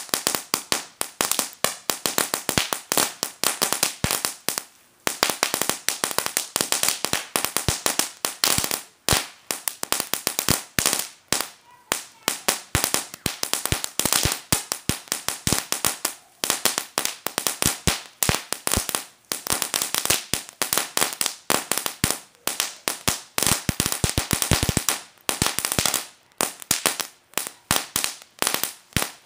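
World Class Fireworks' Cracker Barrel firework going off in rapid volleys of sharp firecracker-like bangs, many a second, broken by brief pauses every few seconds.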